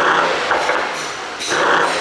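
Mercedes-AMG GT63 S's twin-turbo V8 exhaust revved in two throttle blips about a second and a half apart, each falling away with pops and crackles from an ECU pop-and-bang tune.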